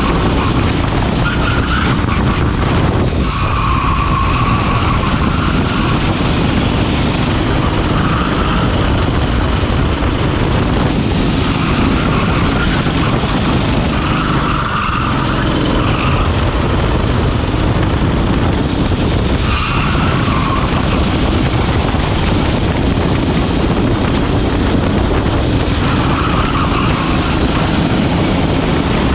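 Racing kart engine running hard at full throttle through a lap, heard onboard over a dense rush of noise, with short tyre squeals recurring every few seconds as the kart corners.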